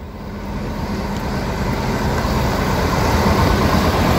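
Bus engine idling: a steady low hum under a noisy rush, growing steadily louder.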